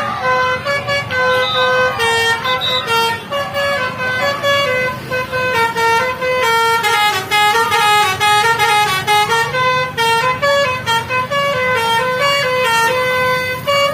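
A tour bus's basuri telolet horn, an electric multi-trumpet horn, playing a melody. Loud held notes step up and down several times a second.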